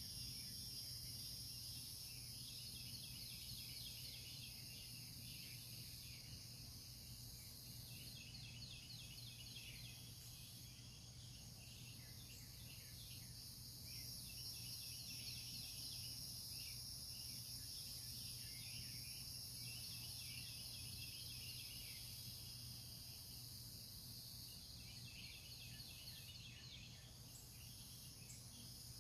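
Faint early-morning birdsong, repeated chirping calls that come and go over a steady high insect trill, with a low steady hum underneath.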